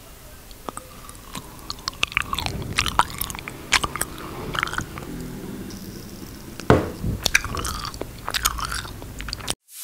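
Close-miked mouth sounds of someone biting into and chewing an edible glue stick: many short clicks and smacks of lips and teeth, with the mouth right at a clip-on microphone.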